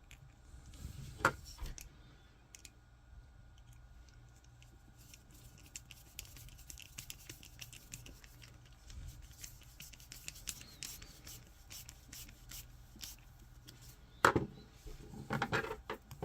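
Small clicks, scrapes and rubbing of 3D-printed plastic parts being handled while a small screw joins the heel and toe of a figure's foot, with a sharp knock near the end.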